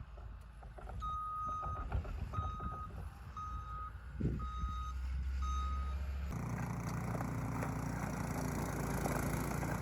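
Bulldozer's reversing alarm beeping five times, about once a second, over low engine rumble. About six seconds in, an abrupt change to a steady machine engine running with a rushing noise.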